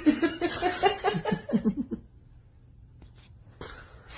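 A person laughing in a quick run of short bursts for about two seconds, the bursts dropping lower towards the end. Then it goes fairly quiet, with a short noisy burst just before the end.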